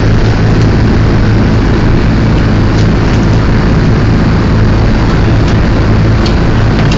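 C-47 Dakota's twin Pratt & Whitney R-1830 radial engines droning steadily, heard loud from inside the cabin as a deep hum under a constant rushing noise.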